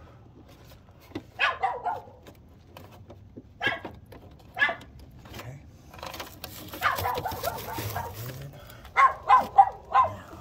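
A dog barking on and off, single barks a second or two apart and then a quick run of about four barks near the end.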